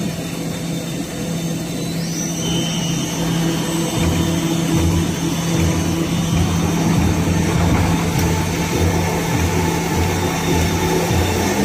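MINGHUNG veneer peeling machine (veneer lathe) running, its motors humming steadily as it peels a log into veneer. A low rhythmic pulsing joins about four seconds in.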